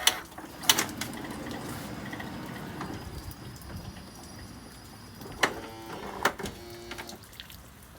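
Toyota Sienna power sliding door closing under its own motor, freshly fitted with a new drive cable: a steady mechanical whir for several seconds, then two sharp clunks as the door reaches the end of its travel and latches.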